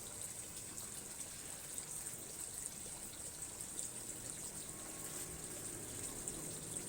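Steady rush of running water, continuous and even, with a high hiss on top.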